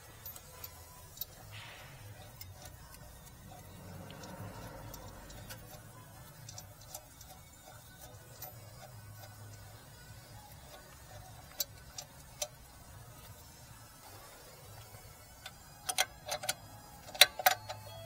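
Scattered light metal clicks from hand tools on the rear brake caliper, then a quick run of louder clicks near the end as a ratchet wrench is worked on a caliper bolt.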